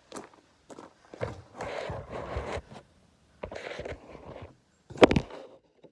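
Things being handled and shifted around, with scraping and rustling in two stretches and a sharp knock about five seconds in.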